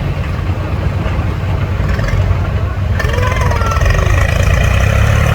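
Tractor diesel engine running steadily. About three seconds in the sound changes abruptly to another engine, which is a little louder.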